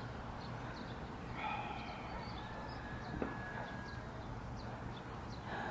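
Quiet outdoor ambience: faint, scattered bird chirps over a steady low background noise, with a brief distant call about a second and a half in.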